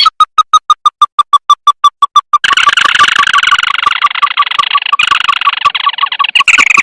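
Played-back call of a crake used as a bird lure: a fast series of short, evenly spaced piping notes, about six a second. From about two and a half seconds in, a dense chattering runs over the notes, and it stops shortly before the end.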